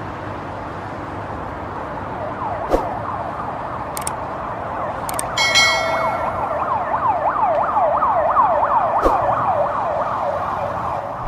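Emergency-vehicle siren in a rapid yelp, its pitch sweeping up and down about three times a second and growing slightly louder. A few sharp clicks and a short bright chime sound about five and a half seconds in.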